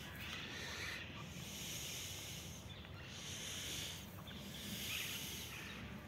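Outdoor background noise: a low rumble of wind on the phone's microphone, with a soft hiss that swells and fades every second or two.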